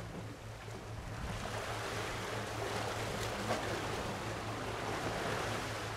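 Small sea waves washing at the shoreline, growing a little fuller about a second in, over a steady low hum.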